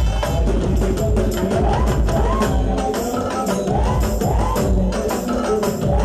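Live band playing a Malayalam folk song over a stage sound system: fast hand-drum and percussion strokes under a melody that rises and falls in a repeating phrase about every two seconds.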